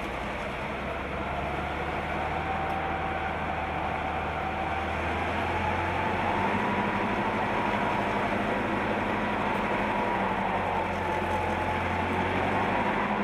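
Norfolk Southern diesel locomotive approaching with its engine running in a steady low hum, slowly getting louder. A faint whine climbs in pitch over the first half.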